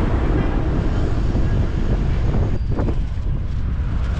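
Wind buffeting the microphone as a steady low rumble over outdoor background noise, the higher hiss thinning slightly a little past halfway.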